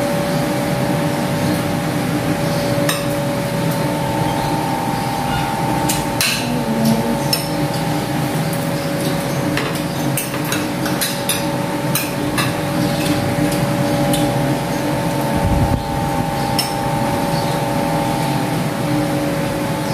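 Spoons and forks clinking and scraping against ceramic plates and a serving bowl as two people eat, in irregular sharp clicks over a steady background hum.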